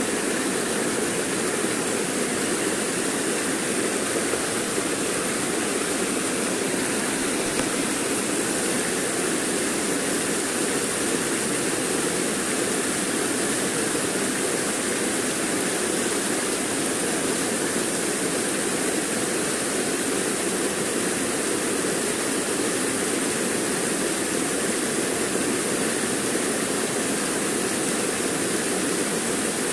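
Fast, shallow river water rushing over boulders: a steady, even rush with no breaks.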